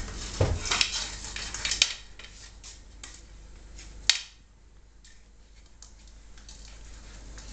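German shorthaired pointer puppies playing with a brush on a tiled floor: quick clattering, scraping and clicking of the brush and claws on the tiles, busiest in the first two seconds, with one sharp knock about four seconds in and fainter scattered ticks after it.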